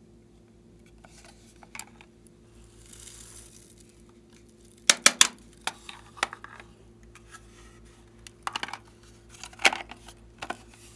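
Hard plastic clicks and knocks from handling a lips-shaped novelty telephone, with a loud cluster of clicks about five seconds in as it is pulled open, then scattered taps and knocks.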